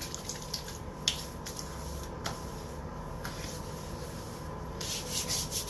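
A few light clicks from handling the bay rum aftershave jug, then about a second of hands rubbing near the end as the aftershave goes on.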